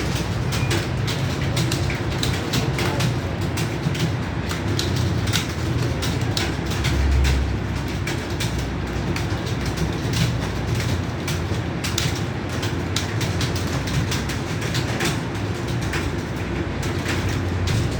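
Many computer keyboards being typed on at once: a dense, irregular clatter of keystrokes, over a low hum.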